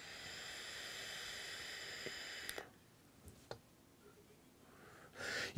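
Faint steady hiss of a draw on a GeekVape Aegis Boost vape fitted with its rebuildable RDTA cartridge, firing a 0.6-ohm coil at 20 watts. The hiss of air pulled through the open airflow and past the coil stops about two and a half seconds in, leaving a small click and a soft exhale near the end.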